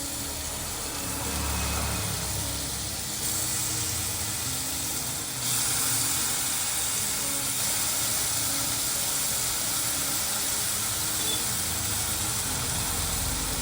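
Marinated chicken pieces sizzling as they shallow-fry in hot butter and olive oil in a pan, a steady hiss that grows louder about three seconds in and again about five seconds in.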